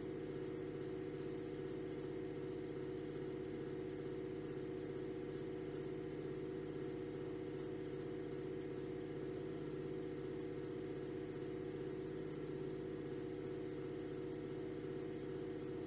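A steady, unchanging drone made of several low held tones.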